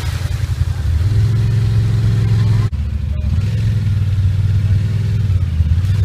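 Side-by-side UTV engines running at low, steady throttle while crawling through deep mud and water. The sound breaks off briefly about two and a half seconds in, and a second engine takes over with a similar steady hum.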